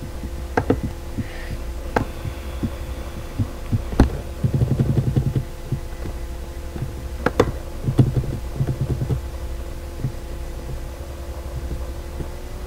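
Steady low electrical hum with scattered sharp clicks and taps, as of a laptop being handled and clicked. Two short stretches of rapid low rattling come about four and a half and eight seconds in.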